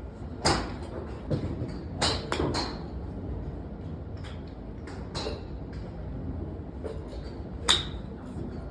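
Sharp cracks of golf clubs striking balls: the loudest about half a second in and near the end, with quicker, fainter strikes in between.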